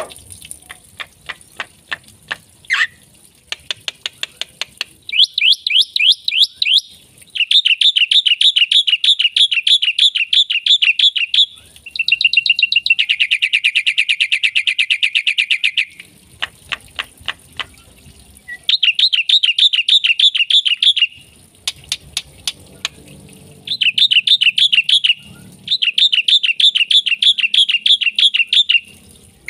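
Black-winged myna (jalak putih) singing a full, varied song: runs of rapid sharp clicks alternating with long, fast trilled phrases lasting a few seconds each.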